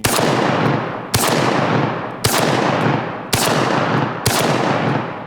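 Shotgun firing number 4 buckshot, five shots in quick succession about one a second as the magazine is emptied; each loud report trails off in a long echo.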